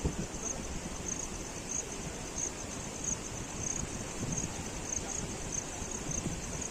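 An insect chirping in short, high-pitched pulses about every two-thirds of a second, over a steady low outdoor rumble.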